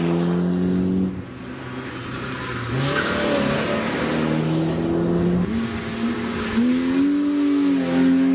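Racing car engine accelerating hard through the gears. Its pitch climbs, breaks off at each gear change, and climbs again; the engine goes quieter for a moment about a second in.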